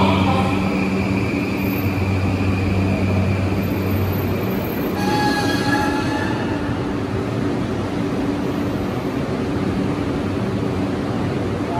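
E235 series 1000 electric train standing at an underground platform, its on-board equipment humming steadily. About five seconds in there is a short hiss with a brief tone.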